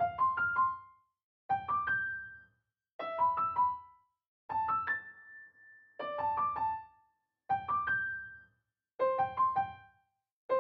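Piano playing short groups of three or four quick notes, a new group every second and a half, each dying away before the next starts.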